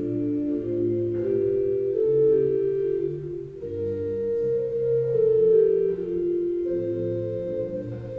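Church organ playing slow, sustained chords over a low bass line, the notes held and changing about once a second.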